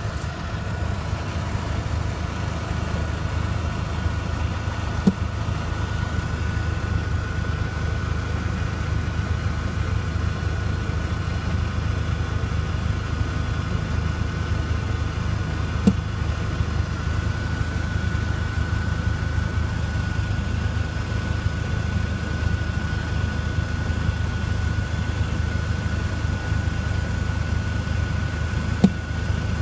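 Volkswagen Jetta Mk4's 1.8-litre turbocharged four-cylinder engine idling steadily, with three sharp pops from under the car spaced about ten seconds apart: an infrequent idle popping whose cause is not yet diagnosed.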